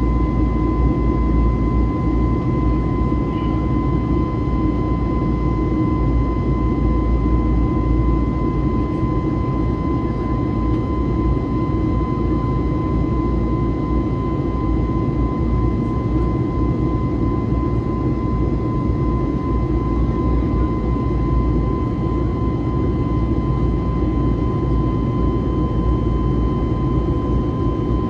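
Airbus A321neo's CFM LEAP-1A turbofan heard from the cabin during the climb after takeoff: a steady deep rumble with a constant high whine over it.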